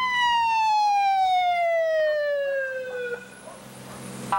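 Police car siren in one long wail, its pitch falling steadily over about three seconds before it cuts off.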